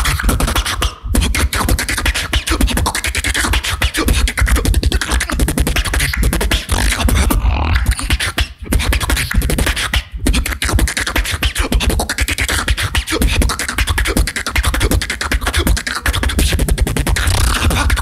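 Solo beatboxing: a fast, continuous vocal-percussion routine with a heavy deep bass line under rapid clicks and snares, with a few split-second breaks.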